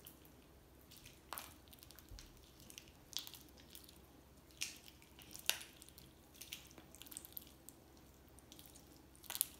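Freshly mixed clear slime being stretched and kneaded by hand: faint wet squishing with a few short, sharp sticky pops a second or more apart.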